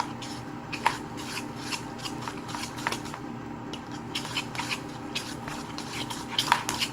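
Slime being mixed after more liquid detergent is added, making irregular sticky clicks and rubbing sounds.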